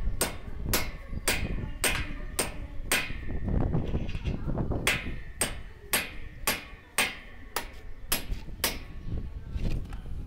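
Hammer striking steel anchor fastener bolts, driving them into drilled holes in concrete to fix the base plate of a solar panel mounting structure's leg. The blows are sharp and metallic, ringing, and come about two a second, with a short pause about four seconds in.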